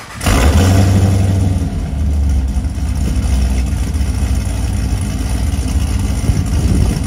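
2011 Chevrolet Caprice's 6.0 L LS V8, with long-tube headers and a Solo Performance exhaust, starting up: it catches suddenly a moment in, runs a little louder for the first second or so, then settles into a loud, steady, deep idle.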